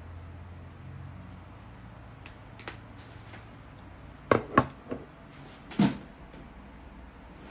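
A handful of sharp knocks and clicks from hard objects being handled: a few light ticks, then two loud knocks in quick succession, a smaller one, and another loud knock about a second later, over a low steady hum.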